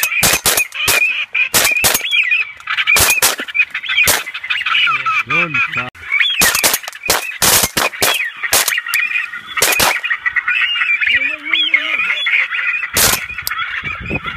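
A large flock of ducks calling and quacking without a break, cut by many sharp bangs from shotgun fire, coming thick in the first half and again near the end.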